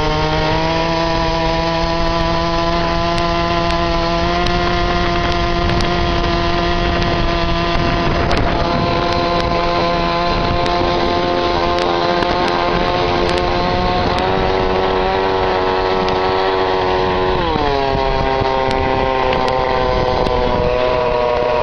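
25cc two-stroke weed eater engine driving a motorized bicycle, running at high revs with a steady buzz. Its pitch rises a little in the first second, holds, and drops noticeably about three quarters of the way through.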